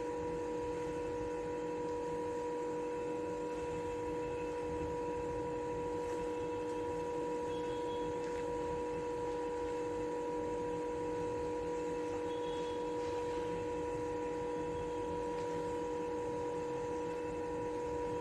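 A steady, even hum at a few fixed pitches that does not change; the soft folding of the batter is not heard over it.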